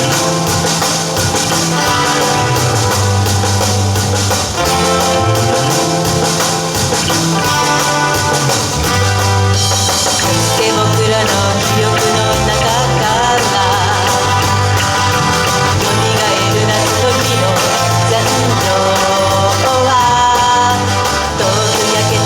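Live band playing an upbeat rock-style number, with drums, bass, guitar and a singing voice.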